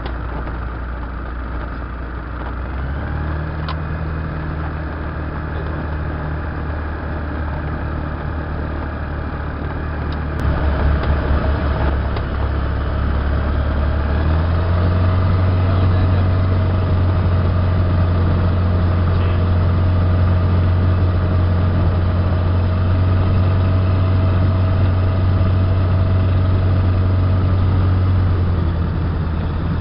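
Ultralight aircraft's propeller engine running steadily at low power on the ground, heard from inside the cockpit. Its pitch steps up a little about three seconds in and again, louder, about halfway through, then eases slightly near the end.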